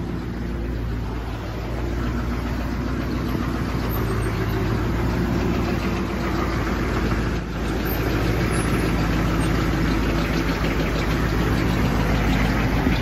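Humvee V8 diesel engine idling with a knock, growing louder about two seconds in and again about eight seconds in. The mechanics later put the knock down to a bad belt tensioner pulley letting the belt move around.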